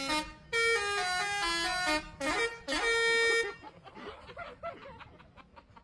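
A bus's "telolet" musical air horn playing a quick tune of short, stepped notes that stops about three and a half seconds in, followed by faint voices of people.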